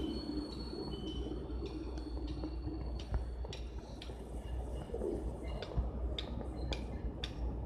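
Street ambience: a steady low rumble with a few faint high-pitched squeaks in the first half, then a run of light clicking taps, about three a second, growing stronger toward the end.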